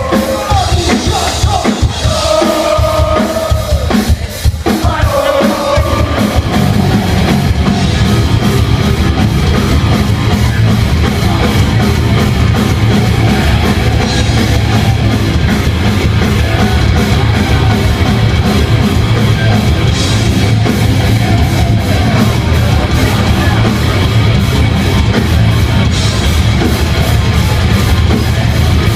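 Heavy metal band playing live at full volume, with distorted electric guitars, bass and a drum kit, recorded from among the audience. About six seconds in, the playing thickens into a dense, steady wall of sound.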